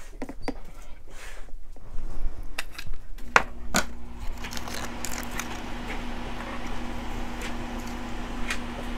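Light clicks and taps of costume jewelry being handled and sorted, with two sharper clicks about three and a half seconds in. A steady low hum comes on about three seconds in and continues.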